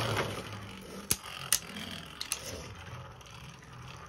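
Beyblade spinning tops whirring and scraping around a plastic stadium after launch, fading, with sharp clacks as they hit each other or the stadium wall, two of them about a second and a half in.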